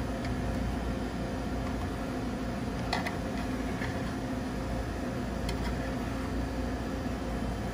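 Steady machine hum, with a few light clicks and taps about three seconds in and again near five and a half seconds, as an egg muffin is pried out of a metal muffin tin.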